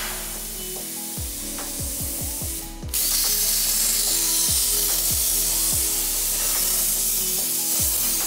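DIY CNC plasma table: with the arc off, the gantry motors whine in short falling sweeps as the torch moves. About three seconds in, the plasma arc fires with a sudden loud, steady hiss and cuts through the steel, while the motor whines carry on under it.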